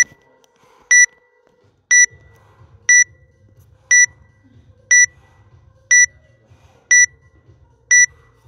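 A workout timer's countdown: nine short, high beeps, one each second, counting down the last seconds before the workout starts.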